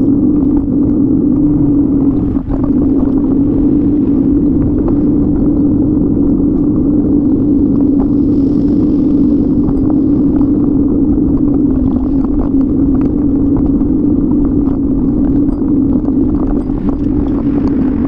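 Steady low rumble with a constant hum: wind and road noise on a bike-mounted camera's microphone while riding.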